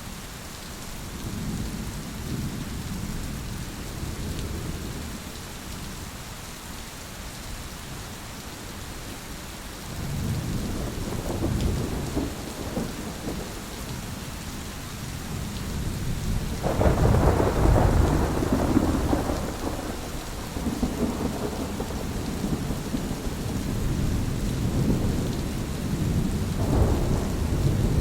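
Steady rain with rolling thunder. Low rumbles swell and fade early on and again about ten seconds in, and a louder thunderclap breaks sharply at about seventeen seconds and rolls on into further rumbling.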